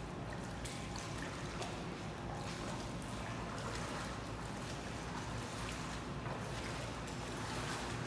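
Shallow floodwater sloshing and splashing steadily as people wade through it.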